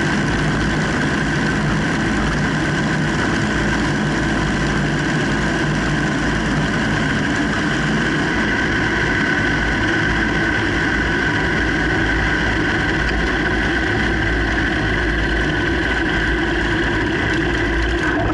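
Open-cockpit biplane's piston engine and propeller running steadily in flight, with a constant rush of air over the airframe, as the plane descends on its landing approach down to the runway.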